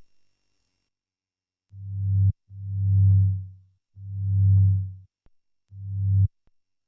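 Synthesized lightsaber hum played as four separate swings: a low hum with overtones swells up and dies away, each about half a second to a second long, with short silences between.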